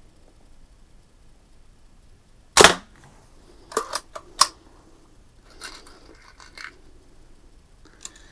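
A Daisy 499B spring-air BB gun fires once with a sharp crack about two and a half seconds in. A few quick clicks follow about a second later, then softer rattles.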